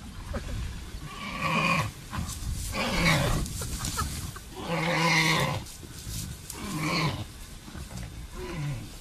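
A lion and a warthog fighting: a series of about five harsh growling calls, a second or two apart, each falling in pitch.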